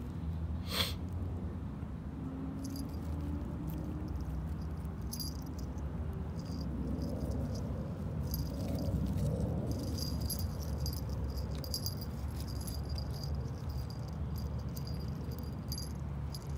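Metal tags on a puppy's collar jingling in quick light clicks as it chews and wrestles a stick, with one sharper click about a second in, over a steady low hum.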